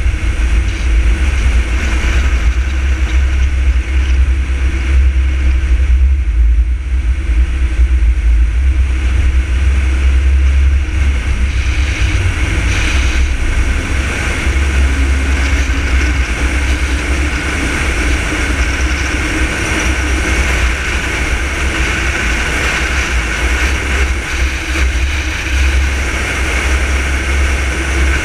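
A car driving at highway speed: a loud, steady rumble of wind and road noise with the engine's hum underneath.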